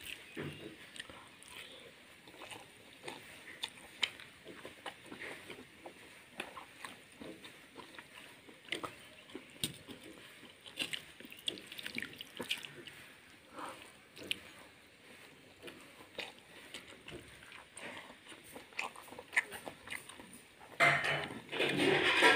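Fingers squeezing and stirring water-soaked rice (basi pakhala) in a steel bowl: soft wet squelches and small clicks against the metal. Near the end there is a louder splash of water, as more water goes into the bowl.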